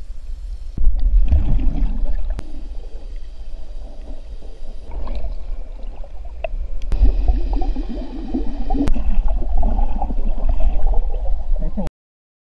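Muffled underwater water sound picked up by a submerged camera: a constant low rumble with gurgling and bubbling, and a few sharp clicks. It cuts off suddenly near the end.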